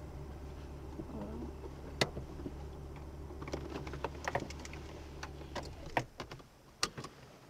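A parked car's engine idling with a steady low hum, heard from inside the cabin, then switched off about five and a half seconds in. Sharp clicks and knocks from the cabin are scattered throughout.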